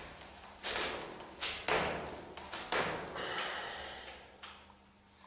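Several dull thumps and knocks from the front fork and suspension of a Ninebot electric kick scooter as it is pushed and rocked by hand, about five in the first three and a half seconds.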